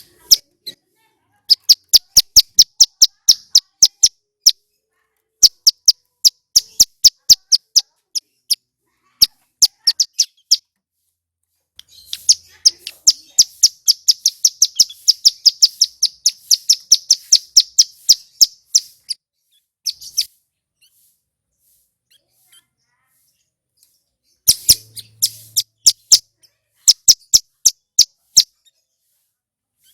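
Ciblek gunung (a prinia) singing: rapid series of sharp, high chirps in bursts, with a long fast run of notes from about 12 to 19 seconds, a pause of a few seconds, and another burst near the end.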